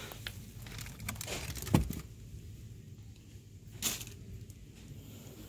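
Handling noise while bananas are picked from a plastic-lined cardboard box: faint rustling, a sharp knock a little under two seconds in and a softer click near four seconds.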